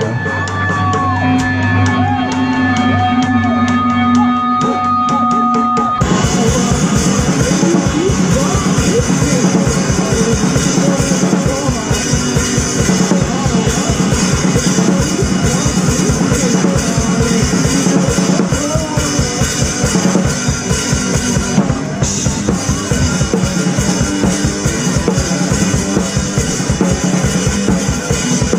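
Rock music: held notes for the first few seconds, then a full drum kit comes in about six seconds in with a fast, steady beat under the rest of the band.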